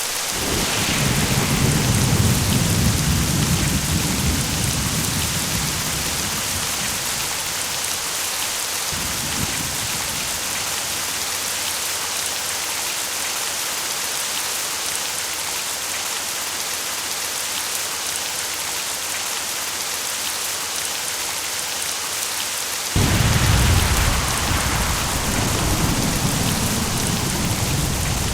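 Steady heavy rain hissing throughout, with rolls of thunder: a long rumble from the start fading out after several seconds, a brief low rumble about nine seconds in, and a sudden loud thunderclap a little after twenty seconds that rolls on to the end.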